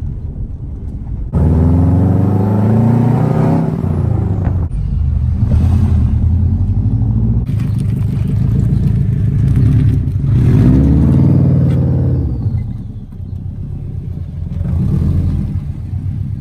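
Subaru WRX's turbocharged flat-four engine and exhaust accelerating, its pitch climbing about a second and a half in and twice more later, with steady running between.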